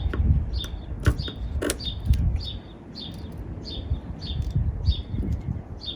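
A bird calling with a short chirp repeated evenly, about twice a second, over a low rumble and a few sharp clicks.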